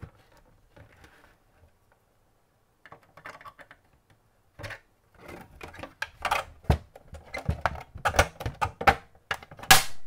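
Plastic clicks, scrapes and snaps as the TiVo Edge's plastic top cover is pried off its hidden clips and hooks. The first few seconds hold only a few faint ticks; from about five seconds in comes a quick run of sharp clicks, with the loudest snap near the end.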